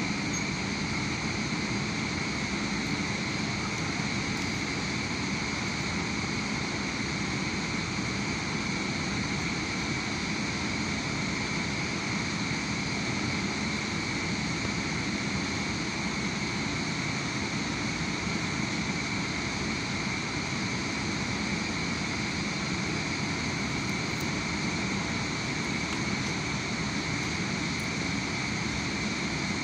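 Steady industrial machinery noise: a constant rushing hiss with a high whine on top, unchanging in level.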